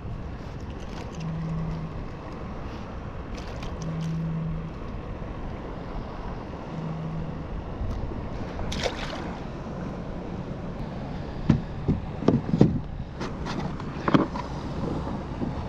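Steady wind and water noise around a plastic sit-on-top kayak, with three short low hums in the first half. In the second half come sharp clicks and knocks of plastic gear being handled as the kayak's hatch and a plastic tackle tray are worked.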